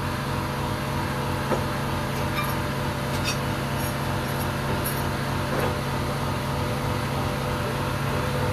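Steady machine hum, with about half a dozen scattered metal clinks and knocks from a Spicer truck differential's case and gears being handled on a steel bench.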